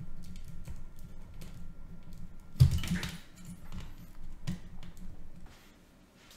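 Small clicks and rattles of connectors and a test clip being unplugged from an electronic module's circuit board, with one louder knock about two and a half seconds in. The handling stops near the end.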